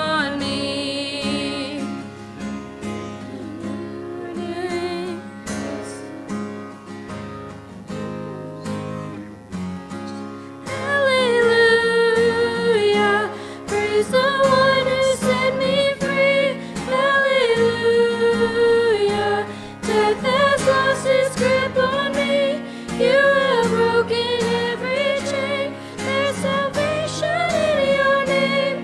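A worship song with acoustic guitar and a singing voice. A quieter instrumental passage runs for about the first ten seconds, then the voice comes in loud with long, held notes about eleven seconds in.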